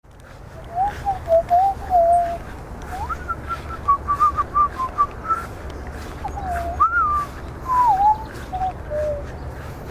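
A person whistling a wandering tune close to the microphone, in short gliding phrases that step up and down in pitch, with a low steady rumble underneath.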